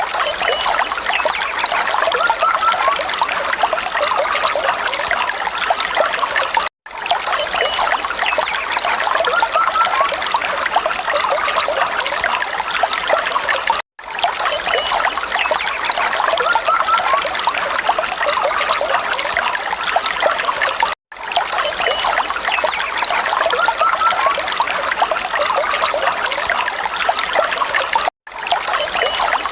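Falling water trickling and splashing steadily, cutting out for an instant about every seven seconds as the recording loops.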